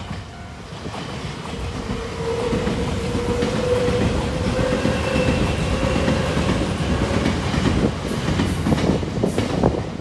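Nankai Koya Line electric commuter train passing over a level crossing: the rumble of steel wheels on rail builds over the first few seconds and holds steady, with a faint hum in the middle. A quick run of wheel clacks over the rail joints comes near the end as the last cars go by.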